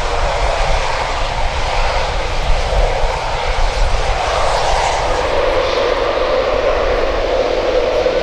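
Eurofighter Typhoon jet, its twin EJ200 turbofans running loud and steady, with a droning tone that dips slightly and settles lower about five seconds in.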